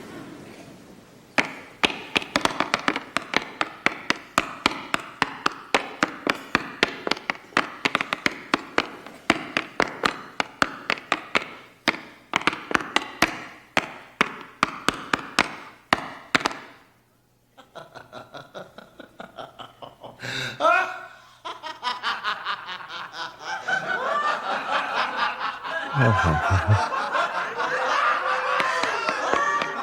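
Tap shoes striking a hard stage floor in a fast, even run of taps for about fifteen seconds, then a few scattered taps. An audience laughing fills the last several seconds.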